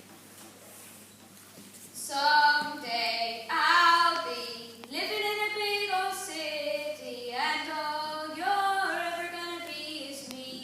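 Singing in high, young-sounding voices, starting about two seconds in, with held notes stepping between pitches.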